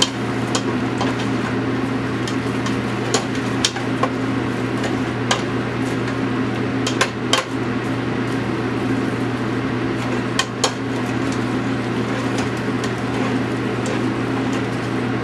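Onions frying in butter in a pan over a steady hum, with about ten sharp, irregular clicks and knocks, like a utensil striking the pan while stirring.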